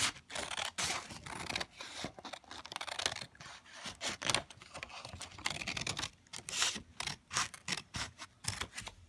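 Scissors cutting through a sheet of folded paper, many short, irregularly spaced snips with the crisp rasp of the blades through the paper.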